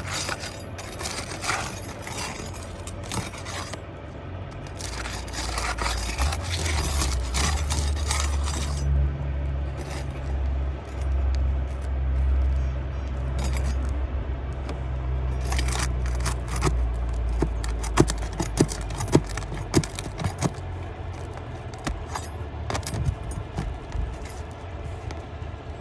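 Metal roofing tools scraping and clinking against asphalt shingles as fasteners are pulled to free a damaged shingle, with several sharp knocks later on. A low steady rumble runs underneath in the middle.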